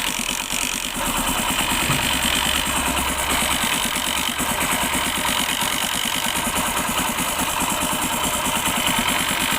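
Hero Honda CD 100 SS single-cylinder four-stroke engine idling, with the kick-start ratchet chattering inside as the kick lever is pushed slightly down. The mechanic takes the noise for kick-shaft timing left out of alignment when the engine was rebuilt.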